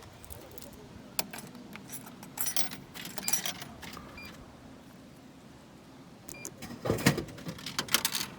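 Light metallic jingling and clicks from small hard objects being handled, in short spells, with a dull thump about seven seconds in.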